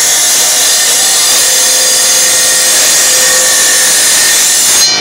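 Tile saw blade grinding steadily and loudly through a tile. Just before the end the cutting stops and the saw's motor keeps running.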